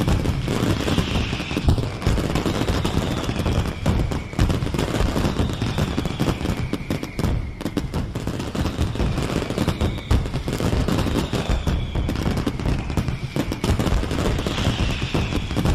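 Fireworks display: a dense barrage of rapid crackling bangs and pops, with high whistles falling in pitch about every two seconds.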